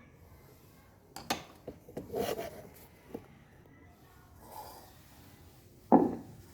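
Handling noises on a hard surface: a couple of sharp clicks, a short scrape about two seconds in, and one sharp knock near the end, the loudest sound.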